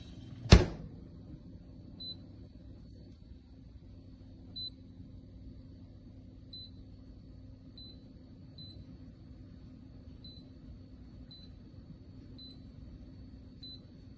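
A single sharp knock about half a second in, then about nine short, high electronic beeps at uneven intervals from the touch-screen control panel of a WIE 8-bottle thermoelectric wine cooler as its buttons are pressed. A faint steady hum and a thin high tone run underneath.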